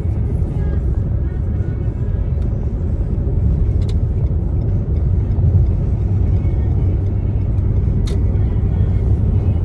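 Steady low rumble of road and engine noise heard from inside a car's cabin at freeway speed. Two faint clicks come about four and eight seconds in.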